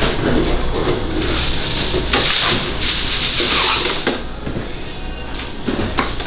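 Rustling and scraping at a barbecue counter as meat is sliced and orders are prepped, with scattered clicks, loudest in the middle.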